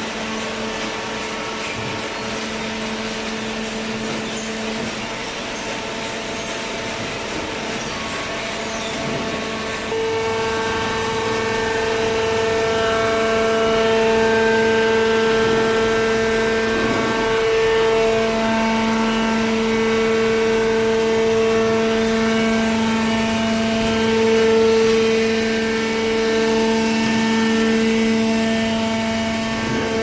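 Hydraulic waste paper baler running: its electric motor and hydraulic pump give a steady, droning hum with a constant pitch. The hum gets louder in a step about a third of the way in and holds there.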